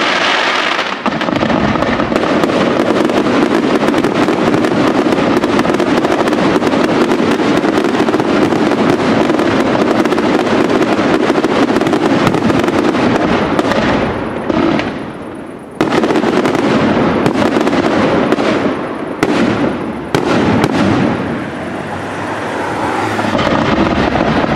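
Aerial fireworks display going off in a dense, near-continuous barrage of bangs and crackling shell bursts. It drops into a short lull about two-thirds of the way through, then picks up again with more distinct single bangs.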